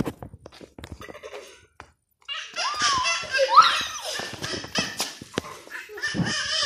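Children laughing and squealing while they play, starting a little over two seconds in after a short quiet stretch with a few light knocks.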